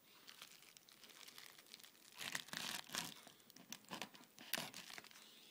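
Shipping package being cut and torn open, its packaging crinkling in short bursts that start about two seconds in, with faint scratching before that.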